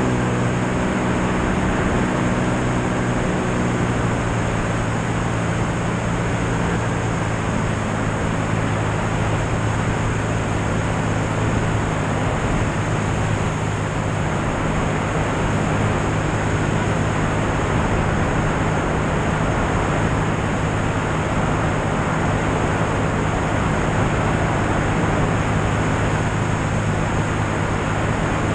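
Light airplane's piston engine and propeller running steadily in cruise, a constant low drone mixed with the rush of airflow.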